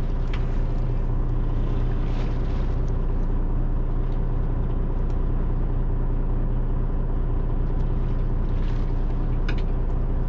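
Fishing boat's diesel engine running steadily: an even, loud, low drone.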